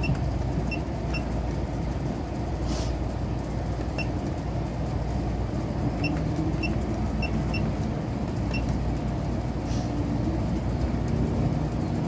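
Keypad of an RVLibro (Ristow) keyless RV door lock giving a short high beep with each key press, about nine beeps at uneven intervals, as a new combination is entered while programming the lock. A steady low rumble runs underneath.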